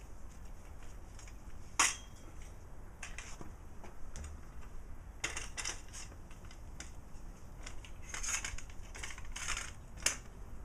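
Clicks and metallic clatter of a folding metal roller stand being collapsed and handled. There is a sharp click about two seconds in, rattles later on, and another sharp click near the end.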